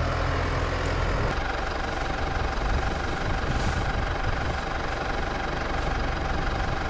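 Farm machine engine running steadily as it carries a round straw bale, with a steady whine joining in about a second in.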